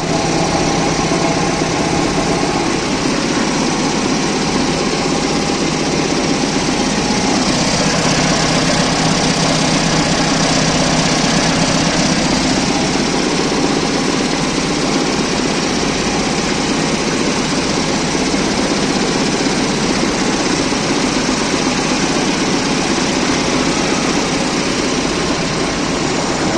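A compressor running steadily and loudly, a continuous mechanical hum with hiss that does not stop or change pace.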